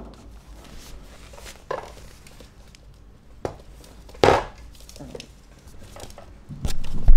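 A few light taps and knocks on a wooden floor as small dog treats are set down by hand, with a louder knock a little past halfway and a heavier thump at the very end.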